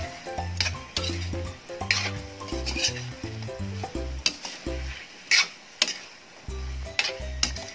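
Metal spatula scraping and knocking against a metal wok while chicken pieces are stirred in sizzling, reducing soy sauce. There are two sharp clanks a little past five seconds in. Background music with a bass line plays underneath.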